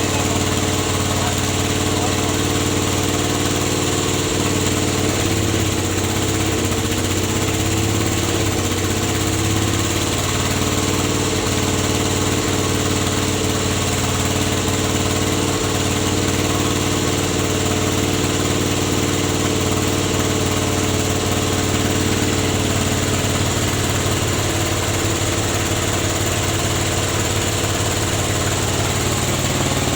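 Engine running steadily, driving a rubber latex press (sheet-rolling machine).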